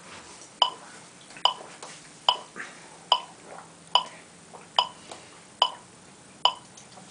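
Electronic metronome clicking at a steady tempo of about 72 beats a minute, each click a short pitched tick.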